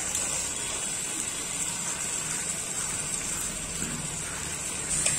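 Chicken masala sizzling steadily in the pan, with a few utensil clicks near the end as stirring begins.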